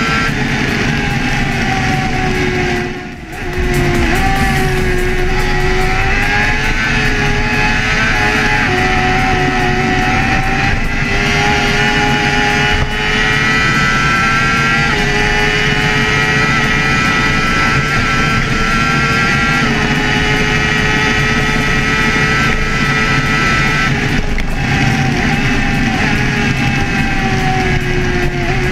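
Sport motorcycle engine running at high revs at highway speed, a steady, pitched engine note that shifts slightly as the rider works the throttle and gears, with a brief dip in the note about three seconds in.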